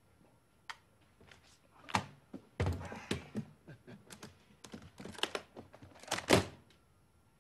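Tools being taken out and set down: a run of knocks, thuds and clicks, loudest about two seconds in and again around six seconds in.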